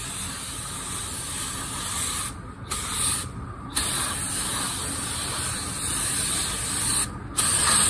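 Iwata spray gun hissing steadily as it sprays waterborne paint with the regulator at 20 PSI. The hiss stops briefly three times: about two and a half seconds in, again a second later, and near the end.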